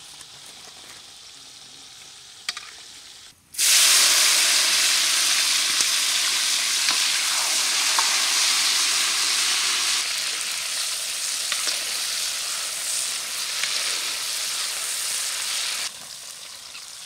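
Vegetables deep-frying in sunflower oil in a wok, with a skimmer stirring. A faint hiss comes first, then a loud, steady sizzle starts suddenly about three and a half seconds in, eases slightly partway through, and drops off shortly before the end.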